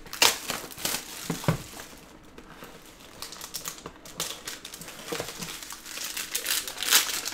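Plastic shrink wrap crinkling and tearing as it is peeled off a sealed trading-card box. The sound comes in crackly bursts, busiest at the start and again near the end, with a quieter stretch in between.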